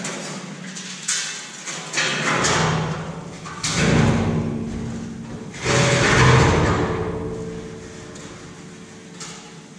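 A large curved corrugated steel grain-bin wall sheet flexing and wobbling with a metallic rush of noise as it is handled. It comes in three swells about two, four and six seconds in, each dying away slowly.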